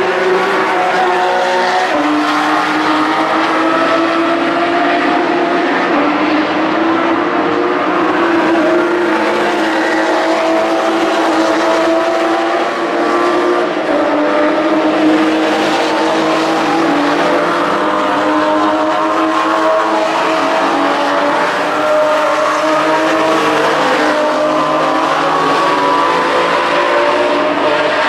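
Porsche being driven hard around a race track, its engine note running loud and unbroken, climbing slowly and dipping now and then as it accelerates, lifts and changes gear.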